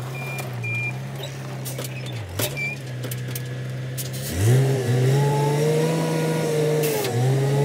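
Diesel dump truck backing up: its reverse alarm beeps three times at the start, then the engine runs steadily. About four and a half seconds in, the engine revs up and holds a higher pitch, dipping briefly near the end, as the driver raises the dump bed to tip the gravel.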